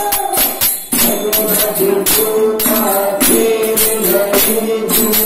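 Kannada devotional bhajane: voices singing into microphones over jingling hand percussion, about three strokes a second. The sound drops out briefly just under a second in, then picks up again.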